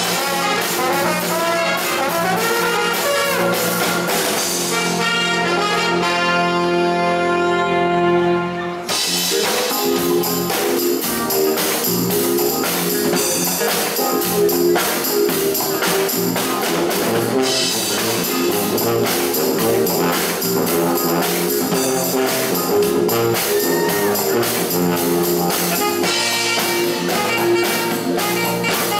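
Live brass band with drums playing upbeat jazzy dance music. About five seconds in the band holds one long chord, which cuts off sharply about nine seconds in before the band launches back into a fast rhythmic tune.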